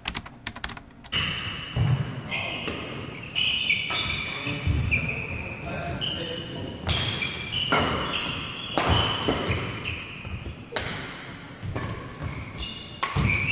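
Badminton doubles rally: rackets strike the shuttlecock with sharp smacks about once a second, while court shoes squeak on the sports mat.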